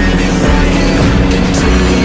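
Loud backing music of a rap-rock song, with a heavy steady beat and sustained chords between sung lines.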